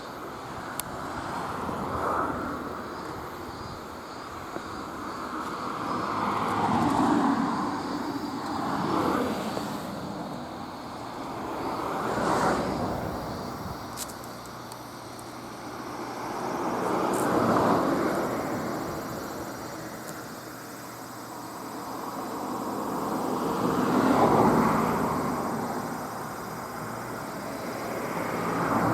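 Road vehicles passing one after another over a level crossing. Each pass is a swell of tyre and engine noise that rises and fades over a few seconds, about six passes in all.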